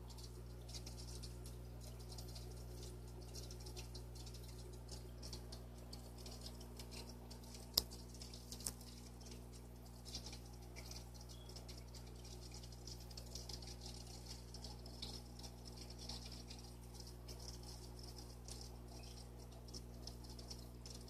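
Aquarium running quietly: a steady low hum under a constant fine fizz of water, with a sharp click about eight seconds in and a softer one just after.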